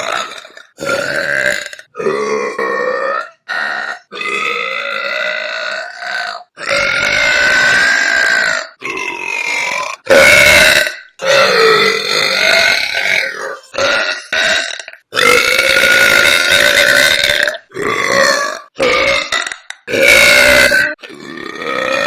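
A woman's loud burps, one after another, about a dozen in all. Most are long and drawn out, some lasting two seconds or more, with the pitch bending up and down.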